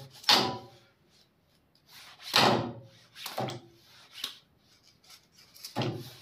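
A kitchen knife chopping chunks off a large raw carrot held over a steel bowl of water, with the pieces dropping in. About five short, crunchy cuts and plops come a second or so apart.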